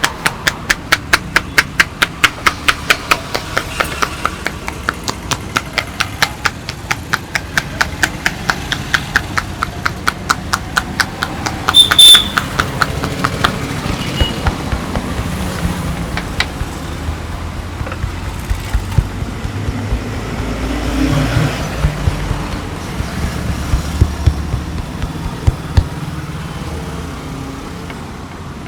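A barber's hands rapidly tapping a client in massage, sharp even slaps at about four to five a second, which thin out to scattered strikes about halfway. A brief loud high-pitched sound comes about twelve seconds in, and street traffic rumbles behind throughout.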